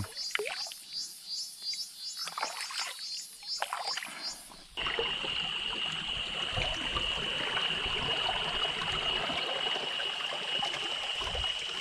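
Insects chirping in a quick, even pulsing rhythm over small splashes and drips of water. About five seconds in, the sound changes suddenly to a stream trickling steadily under one steady high insect drone.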